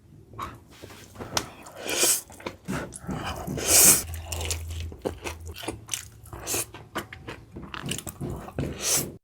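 A person chewing and biting food close to the microphone: wet mouth clicks and smacks, with a few louder crunching bites.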